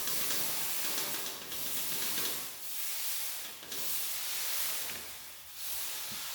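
A pet cat hissing, a run of long hisses with short breaks between them.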